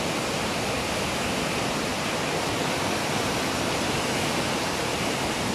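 Brown floodwater of a swollen river rushing and churning in a steady, even noise with no breaks.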